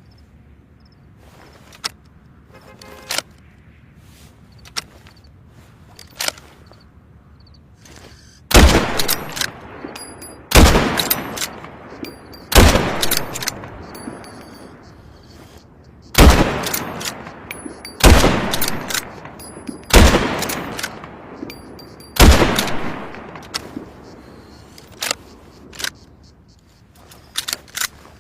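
Remington 700 BDL bolt-action rifle firing seven loud shots about two seconds apart, each trailing off in about a second of echo. A few lighter sharp clicks come before the shots and two more after them.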